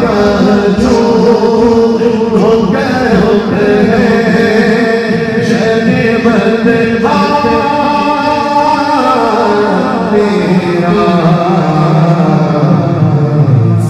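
A man singing a naat, an Islamic devotional song in praise of the Prophet, into a microphone and amplified through loudspeakers. He draws out long, ornamented notes.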